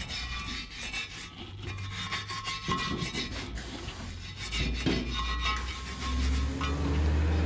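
Rubber of a tractor tyre being roughened with repeated rasping, scraping strokes, preparing the surface around the puncture for a patch. A low hum grows louder near the end.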